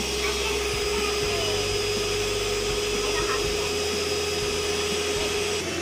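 Electric stand mixer motor running steadily at one speed, a constant whirring hum that stops near the end.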